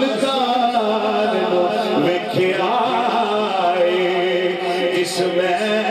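A man singing a naat solo into a microphone, long held notes sliding between pitches, over a steady low drone.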